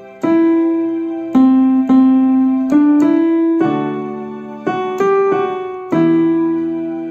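Electronic keyboard with a piano sound playing a slow melody in E minor, about ten struck notes, single notes with a few chords, each ringing and fading before the next.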